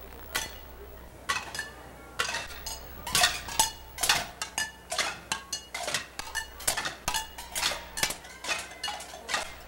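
Many sharp clinks and knocks with short ringing, like glass or metal struck together. They come sparsely at first, then thick and irregular from about a second in.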